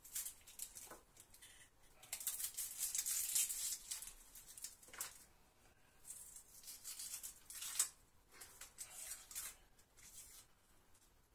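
Dry papery shallot skin being scraped and peeled with a small knife: scratchy crackling rustles in a few spells, with small clicks of the blade.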